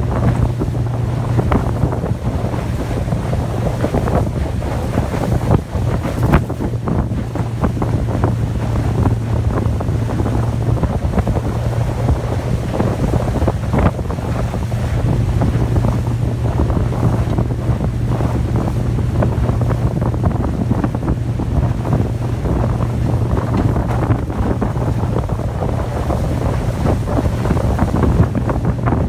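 A 50 hp outboard motor running steadily at speed while towing a water skier, its constant low drone mixed with the rush of the boat's wake. Wind buffets the microphone throughout.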